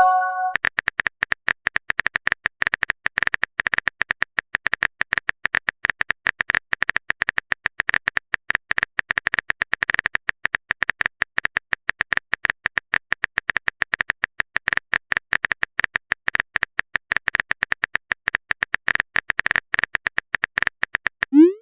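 Phone keyboard typing sound effect: a rapid, irregular stream of small clicks. At the very start, the last of a short chime of a few tones rings out, a message-sent notification.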